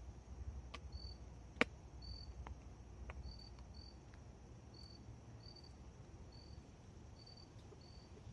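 Short high-pitched chirps repeating at uneven intervals, about one a second, from a small unseen creature. A sharp knock sounds about a second and a half in, with a few fainter ticks.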